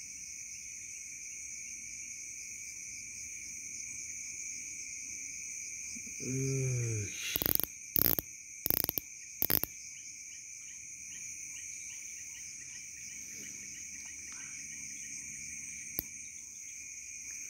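A steady night chorus of crickets and other insects, with constant high-pitched trilling tones. About six seconds in comes a brief low voice, then four sharp knocks or clicks in quick succession.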